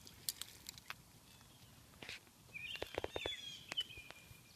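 A bird chirping in short sliding calls past the middle, over a few faint scattered clicks.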